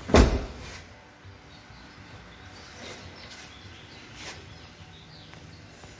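A pickup truck door shutting with one loud thump in the first half-second, followed by quiet background with a few faint clicks and high chirps.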